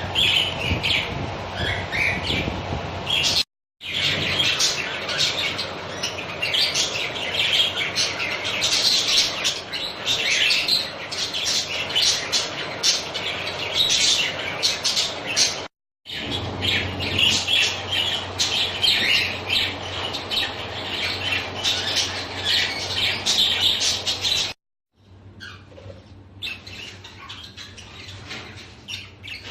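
A flock of budgerigars chattering, a dense mass of overlapping chirps and squawks. It breaks off briefly three times and is quieter for the last few seconds.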